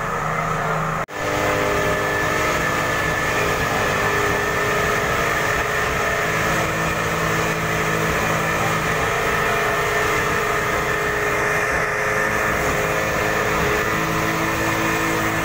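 Fire truck engine running steadily with a constant hum, typical of the truck driving its pump to feed a hose. The sound drops out abruptly for a moment about a second in, then resumes unchanged.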